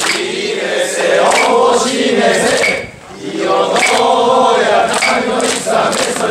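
A group of mikoshi bearers chanting together in unison, many men's voices in drawn-out phrases, with a short break about three seconds in.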